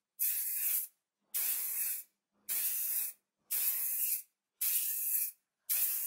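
Aerosol spray can of primer hissing in short bursts, about one a second, six in all, as a panel gets a coat of primer.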